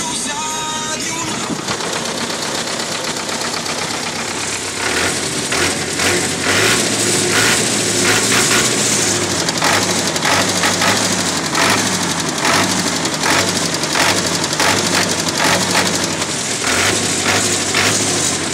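Belarus 820 tractor's four-cylinder diesel engine running, getting louder about five seconds in with a steady repeating beat.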